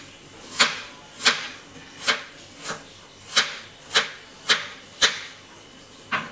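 Kitchen knife slicing through food and striking a cutting board: about nine sharp cuts, roughly one every two-thirds of a second, with a short pause before the last one near the end.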